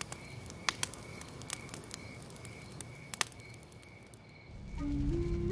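Wood fire crackling, with a few sharp pops from the burning logs. Low sustained music tones swell in near the end.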